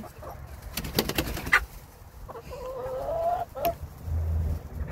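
Domestic hens in a coop: a quick run of sharp wing flaps about a second in, then a hen's drawn-out, wavering call lasting just over a second.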